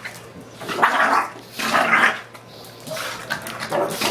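Two young dogs play-fighting, barking in short bursts: two loud ones about a second in and just before two seconds, softer ones near the end.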